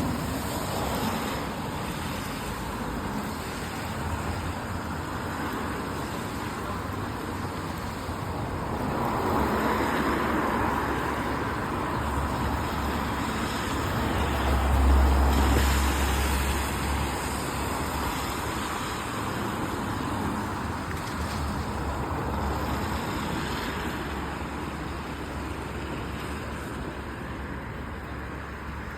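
Road traffic on a wet city street: a steady hiss of tyres, with vehicles swelling past. The loudest one goes by about halfway through with a deep rumble.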